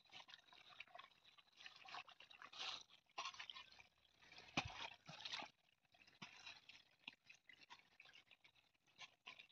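Faint clicking and rustling of hands fastening the hook clips on a tractor's air cleaner cover, with a sharper click about four and a half seconds in.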